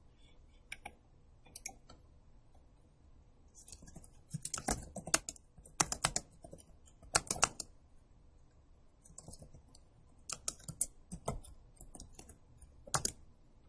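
Computer keyboard typing: a few scattered keystrokes, then quick runs of keys in short bursts with pauses between them.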